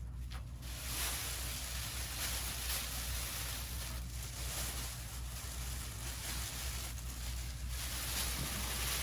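Sheets of Mylar film being lifted and crumpled by hand: a continuous crinkling rustle that starts about a second in, over a steady low hum.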